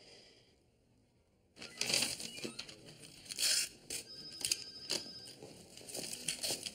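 Plastic and paper crinkling and rustling as they are handled, with many sharp clicks and crackles, starting about one and a half seconds in.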